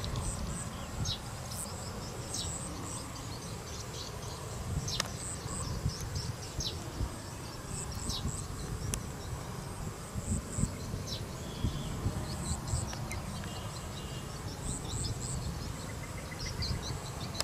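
Insects buzzing and trilling steadily in hillside forest, a high pulsing drone, with scattered short high chirps and a low rumble underneath.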